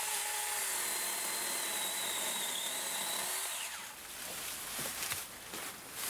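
A battery-powered mini chainsaw with a 6-inch bar running at speed with a steady high whine, which winds down a little under four seconds in. A few light clicks and rustles follow.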